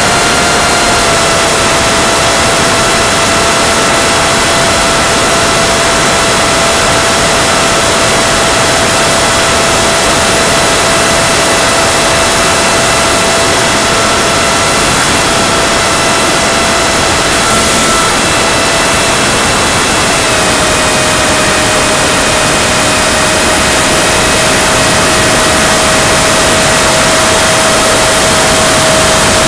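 Electric motor and propeller of a Go Discover FPV model plane heard through its onboard camera: a steady whine over a loud hiss. The whine steps down slightly in pitch a few times, most clearly about two-thirds through.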